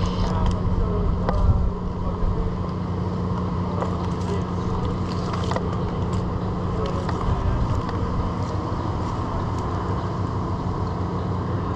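An engine running steadily at a low, even speed, with scattered light clicks and knocks over it.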